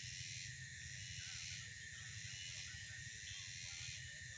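Steady high-pitched drone of insects in a tropical tree plantation, softly pulsing, over a low rumble.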